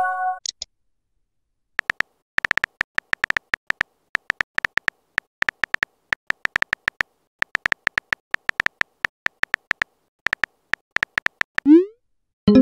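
Phone keyboard tap clicks, dozens of short identical ticks in quick irregular runs as a text message is typed. Near the end a short rising 'bloop' send sound, with the start of a multi-tone message chime just after; a brief chime of a few steady tones also ends just after the start.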